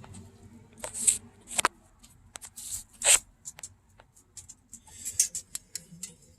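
Scattered clicks, taps and short rustles of hands handling parts and tools in a car's engine bay.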